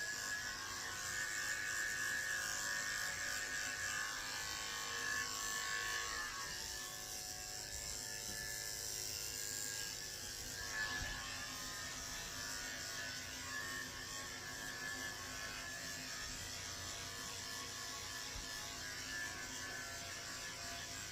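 Electric dog grooming clippers with a number 10 blade running steadily, shaving matted fur down to the skin.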